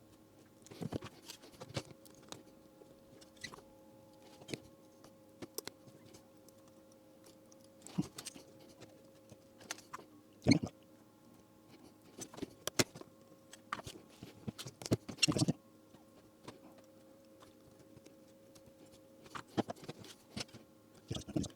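Irregular small clicks, crackles and rustles of hands working with wires and small parts at a workbench, over a faint steady hum.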